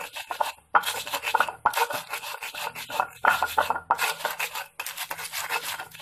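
A pestle (ulekan) rasping and scraping in repeated strokes against a flat Indonesian mortar (cobek), grinding whole garlic cloves, shallots, red chilli and salt into a spice paste.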